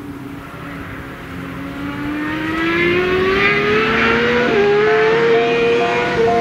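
A motorcycle on a race track, approaching and accelerating hard: its engine note climbs steadily in pitch and grows louder, dips briefly about four and a half seconds in, then holds high.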